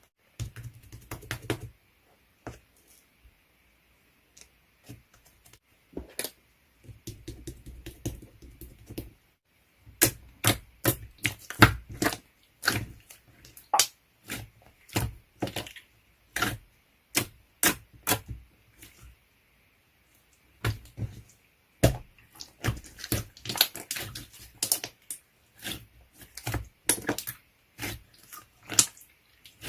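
Runs of rapid, irregular sharp clicks and taps, with a few soft low thumps and short pauses between the runs.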